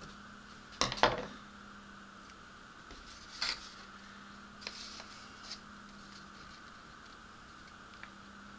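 Hard plastic model-kit parts being handled: a quick cluster of knocks and clatter about a second in, then a few lighter clicks and taps. A faint steady hum runs underneath.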